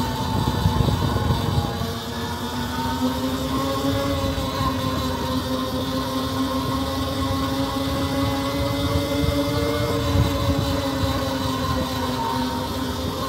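E-Ride Pro SS electric bike's motor whining steadily under way, its pitch sagging and rising a little as the speed changes, over a low rumble of wind on the microphone.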